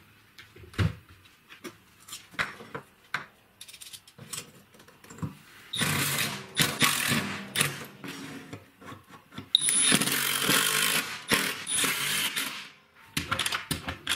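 Scattered clicks and knocks of metal hardware being handled against plywood, then a power drill running in two long bursts, about six seconds in and again about ten seconds in, driving screws to fix a steel hinge into the plywood frame.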